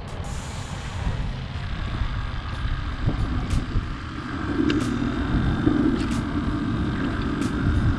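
Wind rumbling on the microphone, with a hand swishing through the water of a bait bucket.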